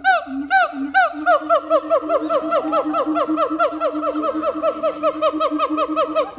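Siamang calling: a loud run of short falling whoops over a steady low hum. The whoops speed up from about two a second to about four or five a second a little over a second in.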